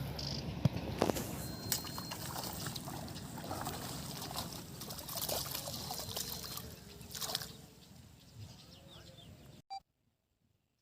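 Water trickling and splashing, with scattered sharp knocks and clicks. It cuts off suddenly to silence near the end.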